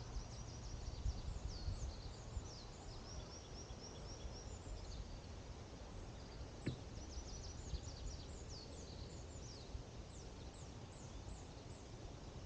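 Songbirds singing in the forest canopy: series of high-pitched chirps, quick trills and short downward-sweeping notes, over a steady low rumble. A single sharp click about halfway through.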